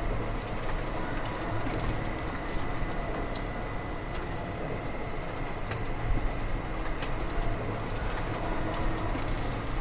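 Steady factory machinery noise with a thin high tone and scattered short clicks.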